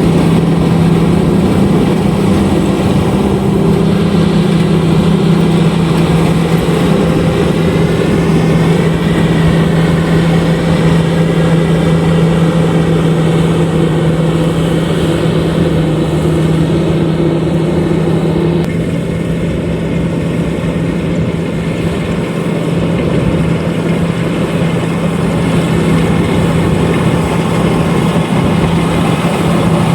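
LOVOL RG130EVO rice combine harvester running steadily under load, a constant engine drone with the mechanical noise of the header and threshing gear over it. The higher part of the noise drops a little about two-thirds of the way in.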